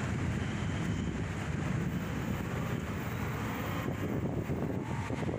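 Steady noise of city road traffic mixed with wind on the microphone.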